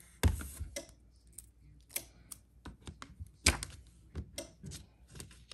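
Hands tearing off heat transfer tape and pressing it onto the corners of sublimation paper laid on a dry erase board: irregular sharp taps and clicks with some paper handling, the sharpest tap about three and a half seconds in.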